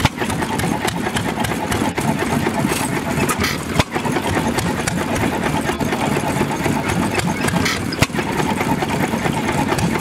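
Vintage horizontal single-cylinder stationary engine running steadily, its flywheel turning and a flat belt driving off the pulley, with a couple of sharp knocks standing out, at about four and eight seconds.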